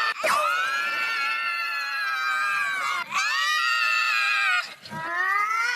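Cartoon characters screaming: long, high-pitched screams, one after another, with short breaks about three seconds in and again near the end.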